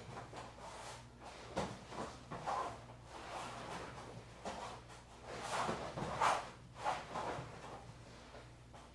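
A person rolling and switching hips on a foam floor mat: irregular scuffs, rustles and soft bumps of body and clothing against the mat, busiest a little past halfway, over a faint steady low hum.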